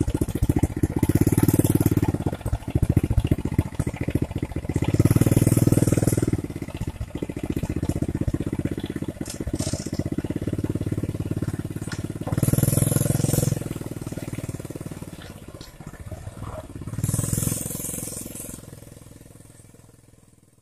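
Small motorcycle engine pulling a heavy load of oil palm fruit bunches at walking pace. It revs up briefly four times and fades away as the bike moves off.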